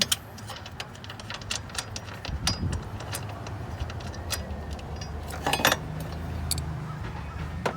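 Socket ratchet with an extension working the bolt on the battery hold-down bracket: irregular sharp metal clicks and clinks, with a loud cluster of clicks about five and a half seconds in.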